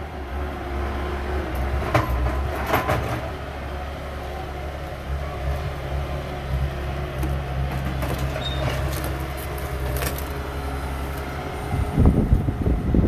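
Heavy diesel machinery running steadily: a concrete mixer truck and a skid-steer loader at work, with a few metallic clanks. Wind buffets the microphone near the end.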